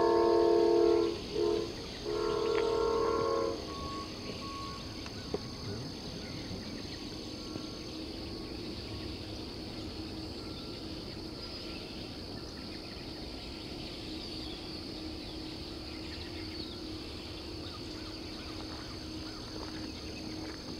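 Amtrak locomotive's multi-chime air horn: a long blast ending about a second in, a short toot, then another long blast lasting about a second and a half, the close of the long-long-short-long grade-crossing signal. After that comes the steady low rumble of the oncoming train.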